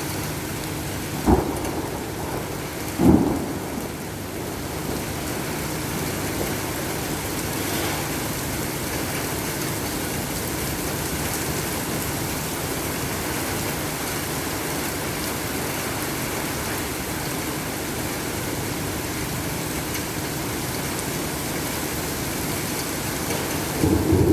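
Steady heavy rain in a thunderstorm, with two short sharp knocks, one a little over a second in and one about three seconds in. Near the end a loud low thunder rumble sets in.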